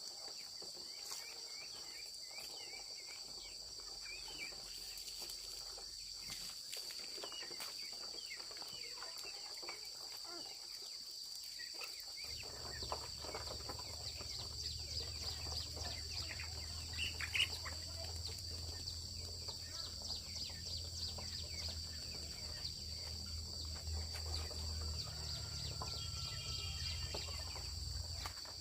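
Insects droning steadily at a high pitch, with irregular clicks and rustles close by. About halfway in, a low steady rumble starts and carries on under the insects.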